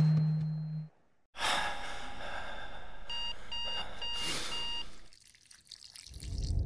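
Smartphone alarm going off: four short, evenly spaced high beeps about three seconds in, over a soft hiss. Before it, the ringing tail of a loud bang dies away and cuts to silence; a low rumble rises near the end.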